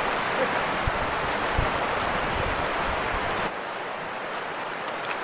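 Shallow stream running over rocks: a steady rush of water that drops quieter about three and a half seconds in.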